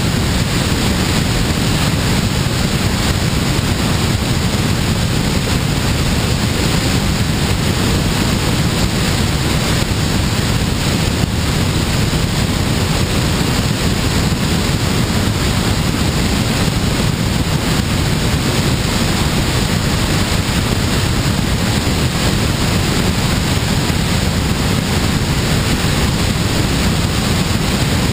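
Steady rush of airflow buffeting a wing-mounted camera on a glider under aerotow, an even roar of wind noise with no breaks.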